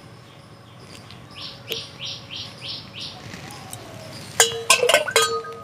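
Small birds chirping in a quick series, about three short calls a second. Near the end comes a louder burst of clinking with short ringing tones, a spoon against the steel mixing bowl.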